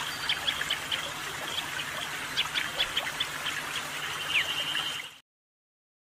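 Prinia (prenjak) calling: sharp, short high chips scattered irregularly over a steady hiss, with one held note and a falling slur about four seconds in. The sound cuts off about five seconds in.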